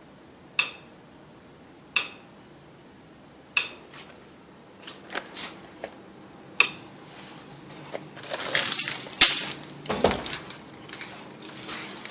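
Small hard objects clinking: a few separate sharp clinks with a brief ring, about one every second or two, then from about eight seconds in a busy jingling clatter, the loudest part.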